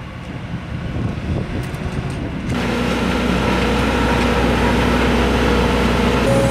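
Engine of heavy road-work machinery running steadily. A lower, uneven rumble cuts over about two and a half seconds in to a louder, steady engine hum.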